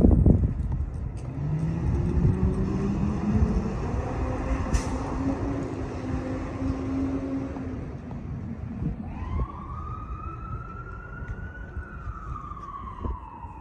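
2019 International ambulance pulling away on an emergency run, its engine note climbing slowly as it accelerates. About nine seconds in, its siren wail starts, rising and then falling once.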